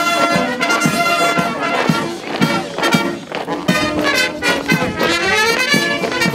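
Military brass band playing a march, with trumpets and trombones over a steady drum beat.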